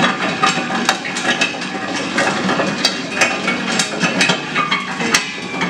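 Locomotive 1000 nut-cracking machine running, a steady motor hum under irregular sharp clicks and knocks from tropical almonds (Terminalia catappa) grinding through its cone and cracking chamber as their fibrous husks are stripped.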